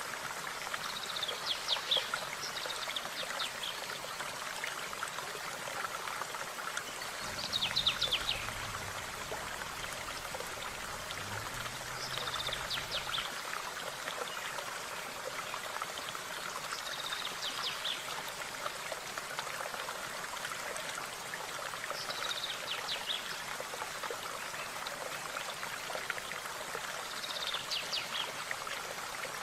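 A stream running steadily, with a songbird repeating a short phrase of rapid high notes about every five seconds.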